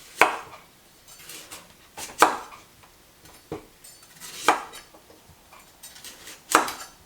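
Kitchen knife cutting through a peeled parsnip and striking a cutting board, one sharp knock every second or two as the root is turned between roll cuts, with lighter taps in between.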